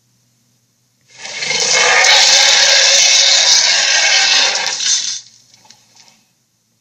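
A loud rushing hiss, like air or water noise, lasting about four seconds. It starts about a second in, cuts off fairly suddenly and leaves a faint trailing rustle.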